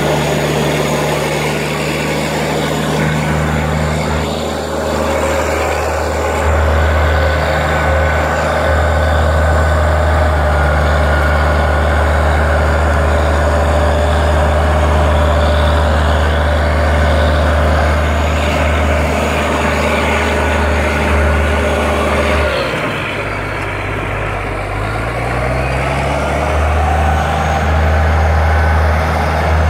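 Caterpillar D6C crawler bulldozer's diesel engine running steadily under load as the dozer pushes a large boulder with its blade. About three-quarters of the way through, the engine note drops, then climbs back up over a couple of seconds.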